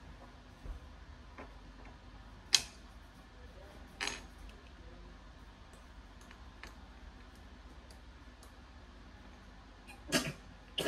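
A few light, sharp taps and clicks from a pencil and paper being handled at a hard tabletop during drawing. The loudest comes about two and a half seconds in and another about four seconds in, over quiet room tone.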